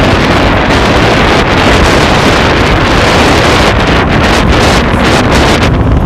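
Loud, steady wind blast buffeting a helmet-mounted phone microphone as a KTM Duke 390 is ridden at speed, with the bike's single-cylinder engine buried underneath.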